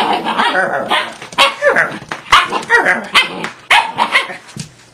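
A dog vocalizing in a rapid, unbroken string of short barks, yips and yowls, each call bending up and down in pitch, as a dog 'talking back' does. It dies away just before the end.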